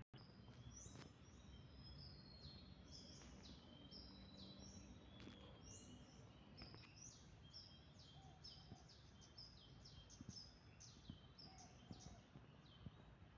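Small birds chirping: many short high-pitched notes, coming thicker in the second half, faint over a low background rumble.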